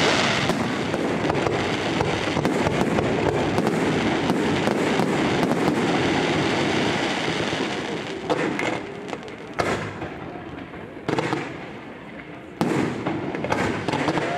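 Aerial fireworks display: a dense, continuous rattle of crackling star bursts and bangs, thinning from about eight seconds in to a handful of separate bangs roughly a second or so apart.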